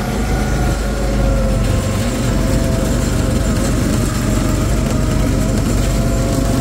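Go-kart's small engine running steadily while the kart drives around the track.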